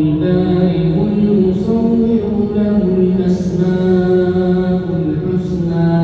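A man's voice chanting Quran recitation in the melodic tajweed style, with long, slowly gliding held notes and a few short breaks between phrases.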